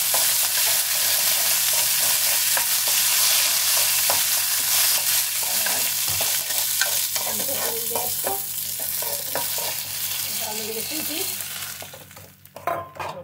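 Chana dal and curry leaves sizzling in hot oil in an aluminium kadhai as a tadka, stirred with a steel ladle that clicks and scrapes against the pan. Near the end the sizzle dies down as semolina goes into the pan.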